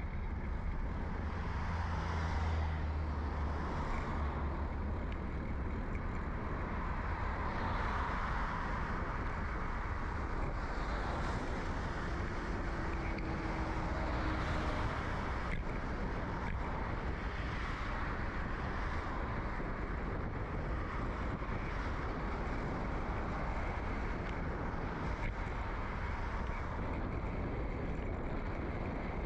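Steady low rumble of a bicycle rolling along a suburban road, heard through a bike-mounted microphone with a furry windscreen, with road traffic noise swelling and fading several times.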